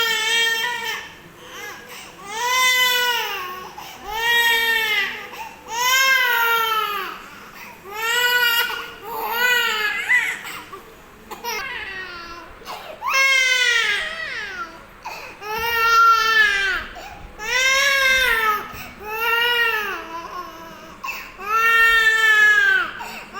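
A young child crying in a run of repeated wails, each rising and falling in pitch, one about every two seconds with short breaths between.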